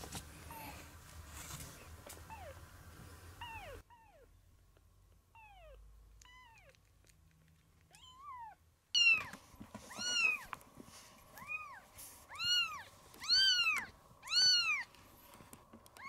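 A very young kitten, about three weeks old, mewing repeatedly in high-pitched calls. The first few seconds hold faint, falling mews about a second apart, then a few faint ones in a quieter stretch; from about nine seconds in the mews turn loud, each rising and then falling in pitch, roughly one a second.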